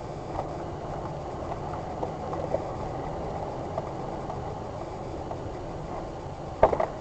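Car driving on a dusty gravel track, heard from inside the cabin: steady engine and tyre rumble with small scattered rattles and knocks, and a short cluster of loud knocks near the end.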